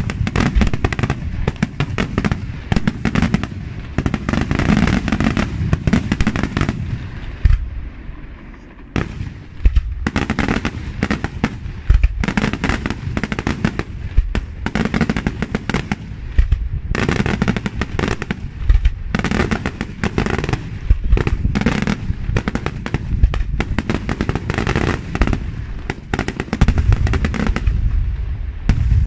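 Daytime fireworks: dense, rapid crackling and bangs of aerial shells bursting overhead, in continuous salvos with a brief lull about eight seconds in before they resume.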